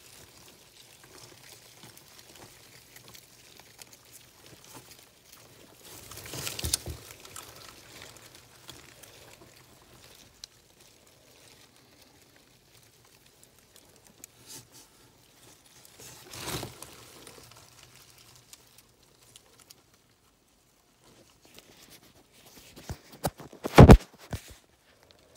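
Handling noise in a cockroach enclosure: faint rustling and scraping, louder rustles about six and sixteen seconds in, and a cluster of sharp knocks near the end.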